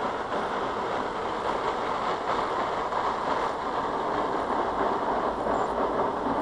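Aquatus Prime combination car wash running its touchless programme: a steady rushing hiss that holds at the same level throughout.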